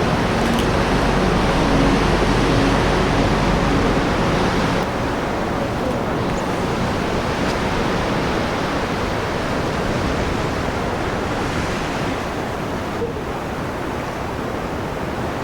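Ocean waves surging against the coastal rock cliffs below, a steady rush of surf, a little louder in the first few seconds.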